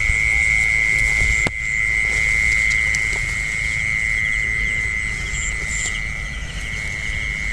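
Steady high-pitched trilling chorus of rice-paddy frogs and insects, with a low rumble beneath and one sharp click about a second and a half in.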